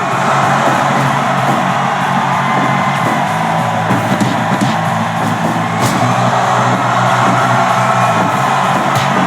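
Loud, steady music with crowd yelling underneath, and a few sharp thuds about midway and near the end.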